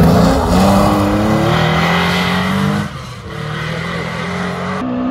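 Rally car engine at full throttle as the car passes close by, pitch rising through the gear, then a sudden lift about three seconds in before it pulls away again. Near the end the sound cuts abruptly to another rally car's engine.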